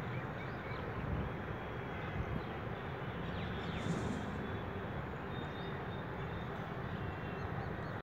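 Steady outdoor background hiss with faint, scattered bird chirps high above it.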